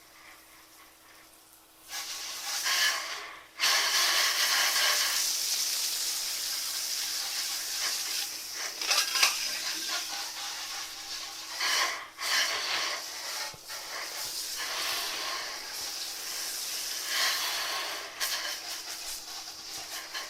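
Water spraying onto a soot-covered metal wood stove to rinse it clean: a steady hiss. It starts about two seconds in, breaks off briefly, then runs on with small rises and dips.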